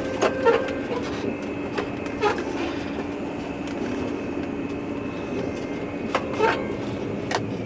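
Combine harvester running while harvesting corn, heard from inside the cab: a steady mechanical drone with a few short sharp clicks scattered through it.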